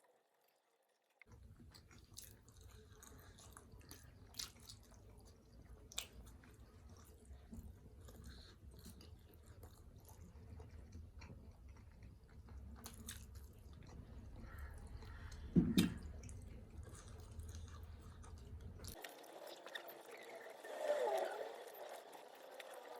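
A person chewing and biting chicken momos, with soft wet mouth sounds and scattered clicks over a low steady hum. The hum stops near the end.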